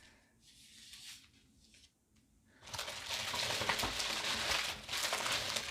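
Paper and packaging crinkling and rustling as they are handled. It is faint at first and becomes a loud, steady crackly rustle about two and a half seconds in.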